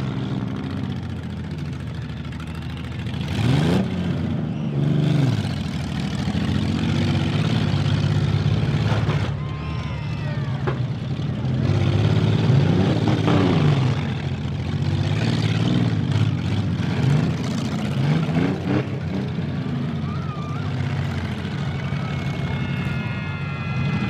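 Demolition derby car engines revving hard and dropping back, several times over, with a few sharp knocks between.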